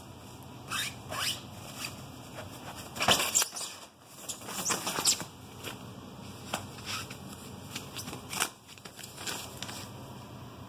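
A kitten scrabbling and pawing at the fabric of a play tent: scattered rustles and claw scratches on the cloth, in short irregular bursts, the loudest around three and five seconds in.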